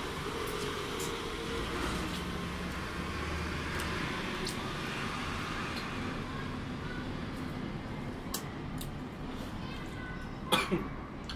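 People eating with their hands at a table: scattered small clicks and smacks of chewing and of food being picked from the plates over a steady background hiss, with a short cough-like throat sound about ten and a half seconds in.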